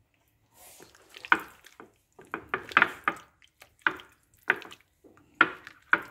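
A hand squeezing and turning chicken pieces in a thick yogurt and spice marinade in a glass dish: a run of short, wet squelches, roughly one or two a second.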